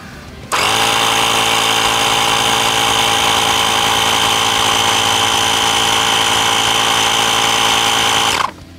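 Honda portable electric tyre-inflation compressor from the car's standard tool kit, switched on about half a second in and running with a steady hum as it pumps air into a front tyre to top up its pressure. It is switched off shortly before the end.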